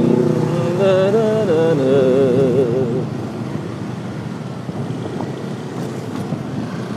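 A wavering melody note with vibrato fades out about three seconds in. It leaves the steady road and wind rush of a motorcycle riding in night traffic.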